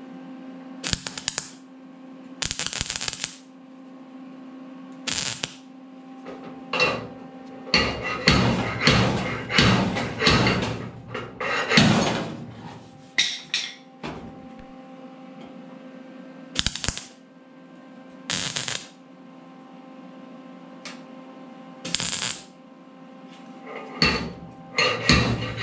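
Short bursts of welding tacking a pull rod onto a creased sheet-steel truck cowl, mixed with sharp knocks from a homemade slide-hammer dent puller pulling the crease out. The events come in irregular bursts, densest a third of the way in and again near the end, over a steady hum.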